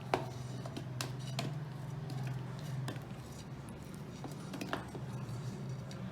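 About five separate sharp clinks and knocks of kitchen utensils and pieces against a blender jar, spaced irregularly over a steady low hum; the blender motor is not running.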